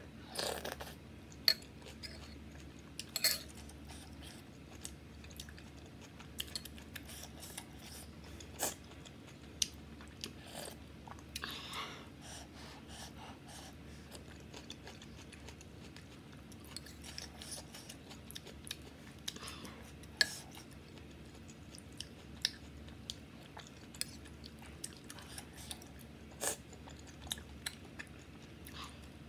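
A person eating spoonfuls of bathup noodle soup, chewing close to the microphone, with scattered short clicks and smacks over a steady low hum.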